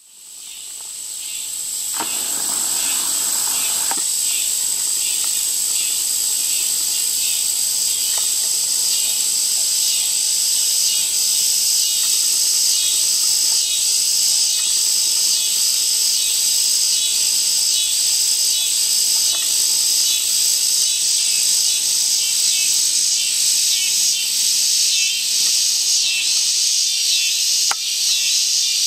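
Dense chorus of insects, a steady high-pitched trill with a fast pulsing layer beneath it, fading in over the first two seconds.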